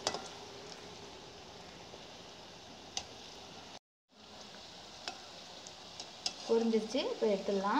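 Battered bondas deep-frying in hot oil: a steady sizzle, with a few light clicks of a metal slotted spoon against the pan. The sound drops out for a moment just before the middle. For the last second or so, a louder vocal call with a rising pitch sounds over the sizzle.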